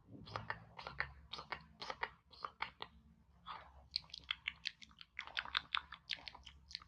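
Close-miked wet mouth sounds: quick, irregular clicks and smacks, like mimed chewing. They thin out briefly just before the middle and come thickest in the second half.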